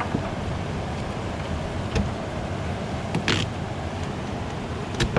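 Duct tape pulled off the roll in one short rip about three seconds in, with a few sharp handling clicks, over a steady outdoor rushing noise.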